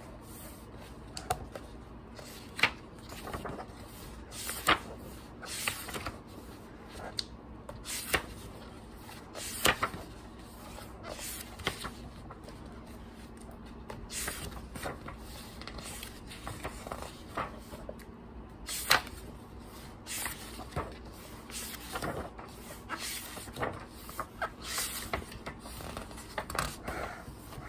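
Pages of large glossy picture books being turned by hand: crisp paper snaps and flaps come irregularly every second or two, with soft rustling and sliding of the sheets between them.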